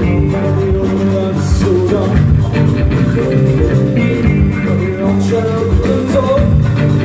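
Live band music: electric guitars over bass and hand drums, with a man singing at the microphone.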